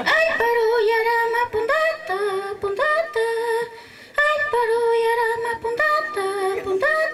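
A woman's high voice singing a chant-like song. It comes in suddenly and moves in short phrases of long, held notes, with brief breaks between the phrases.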